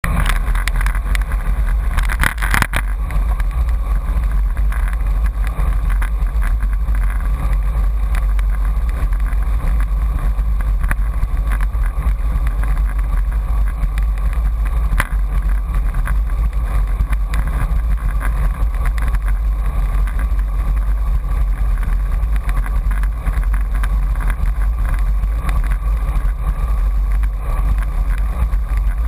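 Wind buffeting the microphone of a camera mounted on a moving road bike: a steady, loud low rumble, with a brief louder gust about two seconds in.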